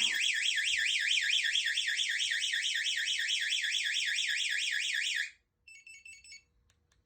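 Compustar motorcycle alarm's piezo siren sounding after being tripped while armed: a loud, fast warble sweeping up and down about six times a second. It cuts off about five seconds in, followed by a few short chirps.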